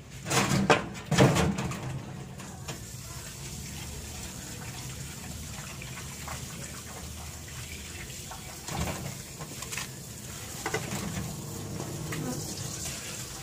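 Tap water running into a stainless steel basin in a sink while fish are rinsed by hand. Two loud clatters come in the first second and a half, and a few softer knocks of the basin follow later.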